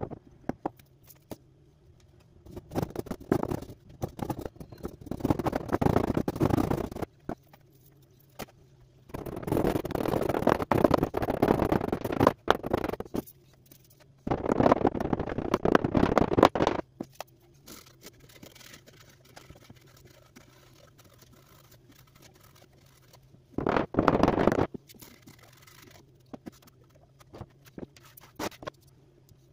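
Molding sand being packed, smoothed and scraped in a wooden casting flask: four bursts of gritty scraping and rubbing, each lasting a few seconds, with quieter pauses between them.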